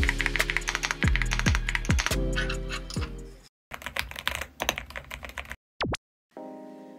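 Fast typing on the Epomaker x Feker Galaxy80, a gasket-mounted aluminium mechanical keyboard: a dense run of key clacks over background music with a deep, dropping bass beat. It breaks off about three and a half seconds in. More key clicks follow, then a quick sliding tone, and soft sustained music notes begin near the end.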